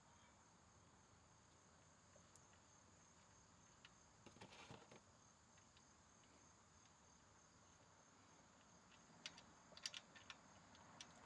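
Near silence: a faint steady high-pitched tone, with a brief faint rustle about halfway and a few soft clicks near the end.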